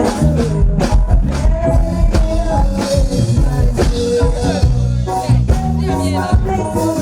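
Loud music with a steady drum beat, a heavy bass line and a singing voice.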